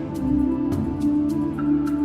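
Music with held tones and a steady ticking beat.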